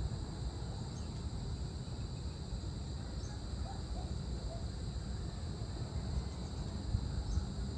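Evening outdoor ambience: a steady, high-pitched drone of insects, over a low rumble. A few faint, short chirps come through here and there.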